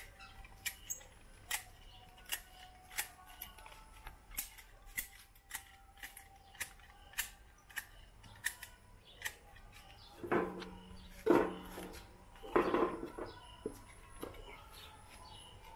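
Manual hedge shears snipping through a leafy hedge: a sharp clack of the closing blades, repeated unevenly about once or twice a second. About ten to thirteen seconds in come a few louder, fuller knocks and rustles.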